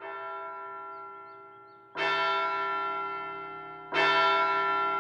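A large clock bell tolling the hour: three slow strokes about two seconds apart, each ringing on and fading, marking that the appointed time has come.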